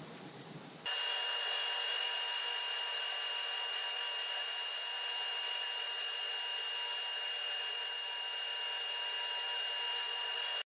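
Table saw running steadily with a high, constant whine. It starts abruptly about a second in and cuts off suddenly near the end.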